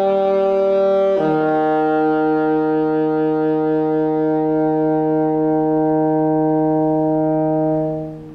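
Saxophone ending the piece on a long low note: a held note steps down to a lower one about a second in, which is sustained steadily for about seven seconds and then released.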